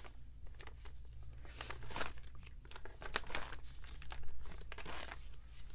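Plastic photocard sleeves and binder pocket pages crinkling and rustling as cards are handled and slid into place, in short irregular crackles.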